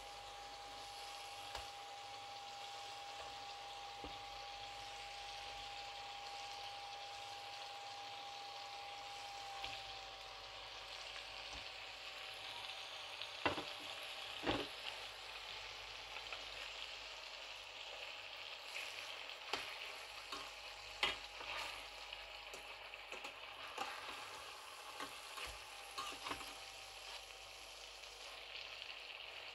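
Fish curry sizzling gently in a stainless steel pan as pieces of fried fish are turned in the sauce with a metal slotted spatula, with sharp clicks and scrapes of the spatula against the pan from about halfway on. A faint steady whine runs through roughly the first third and then fades.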